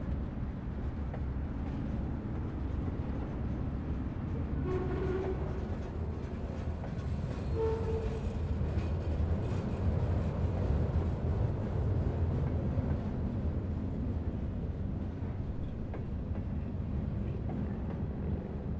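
Freight train in a rail yard, a steady low rumble, with two short pitched tones about five and eight seconds in.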